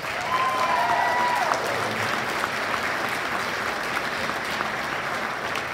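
A banquet audience clapping steadily, a round of applause for the sponsors. One high cheer rises above the clapping in the first second and a half.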